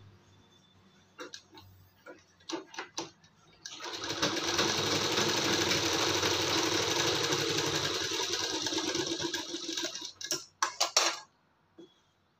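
A sewing machine stitching a seam through layered blouse fabric and lining, joining the waistband piece. It runs steadily for about six seconds, starting about four seconds in after a few light taps of fabric handling, then stops with several sharp clicks.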